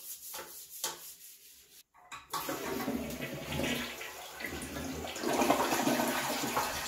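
A toilet brush scrubbing a toilet bowl in a few faint strokes, then, after a brief break about two seconds in, the toilet flushing: water rushing and swirling down the bowl, loudest about five seconds in.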